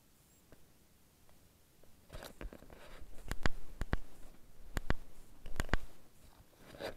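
Camera handling noise: rubbing against the microphone with a run of sharp clicks and knocks, starting about two seconds in, as the camera is turned and fiddled with.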